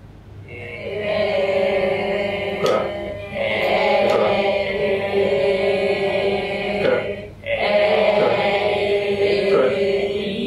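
A group of students voicing a long held vowel in unison, pronunciation drill in chorus. It comes as three drawn-out vowels with short breaks about three and seven seconds in.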